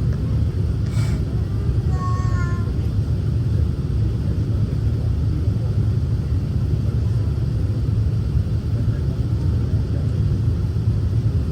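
Steady low rumble inside an Emirates Airbus A380's cabin on the ground before takeoff: the jet's engines and air system running.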